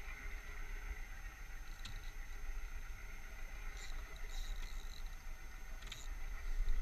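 Low, fluttering wind rumble on the camera microphone at sea, with a few short high-pitched blips scattered through it.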